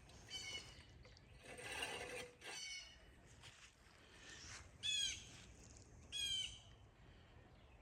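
Birds squawking: about four short, high-pitched calls spread across a few seconds, over a faint low steady hum.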